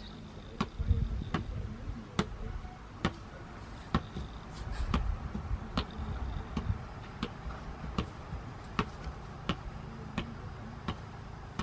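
A soccer ball being headed again and again, a hollow knock about one and a half times a second, in a steady run of consecutive headers.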